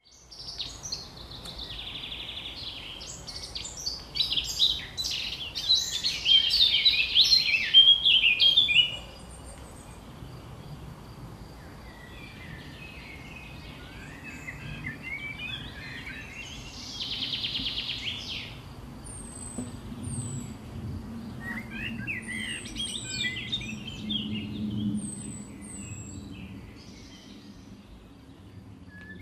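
Songbirds singing and chirping, a busy burst of song in the first nine seconds, then scattered calls and short, high chirps.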